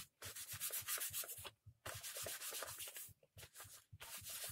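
Rag wiped back and forth over the plastic engine housing of a petrol brushcutter, in quick scrubbing strokes that pause briefly twice.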